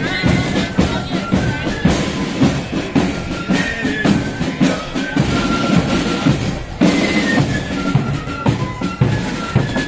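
Marching flute band playing: a tune on flutes over snare and bass drums.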